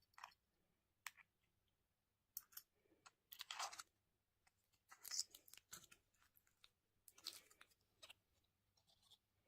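Scattered short crinkles, crackles and clicks of candy and toy packaging being handled and opened, quiet, with silences between them.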